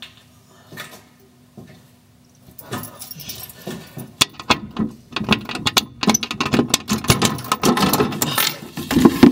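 Metal letterbox flap in a door rattling and clattering, quiet at first, then growing dense and loud after a few seconds as it is worked open.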